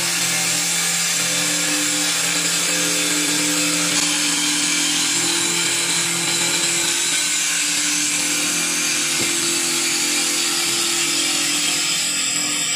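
CNC wood turning lathe cutting a spinning wooden spindle: a steady, loud hiss of the cutter shaving wood over the even hum of the machine.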